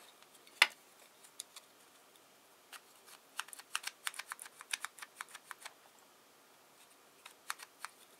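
Scattered light clicks and taps of small 3D-printed plastic parts of a model engine starter being handled: one sharper click near the start, then a quick run of small clicks in the middle and a few more near the end.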